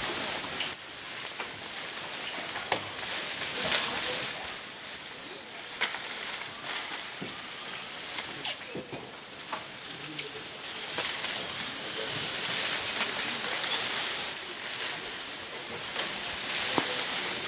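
A troop of black-capped squirrel monkeys calling: many short, very high-pitched chirps and squeaks, several a second and overlapping.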